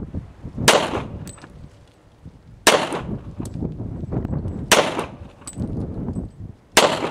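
Four slow, evenly spaced pistol shots about two seconds apart, each sharp crack followed by a short echo.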